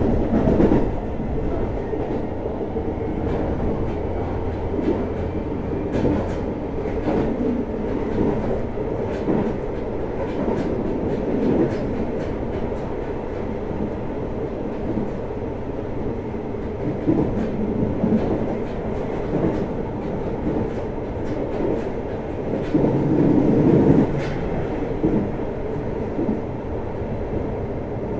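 JR Hokkaido 733 series electric train running between stations, heard from inside the motor car: a steady rumble of wheels on rail with scattered clacks over rail joints. The rumble grows louder for a moment about 23 seconds in.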